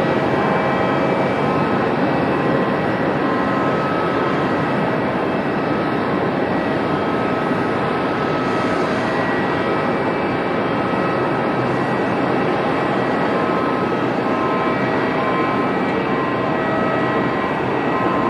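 Boeing 737-700's CFM56-7B turbofan engines on final approach: a steady rushing jet noise with several steady whining tones on top.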